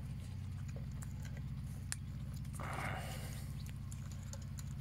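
Monk parakeets at the wire bars of their cage: scattered light clicks of beak on metal and a brief rasping sound about two and a half seconds in. A steady low hum runs underneath.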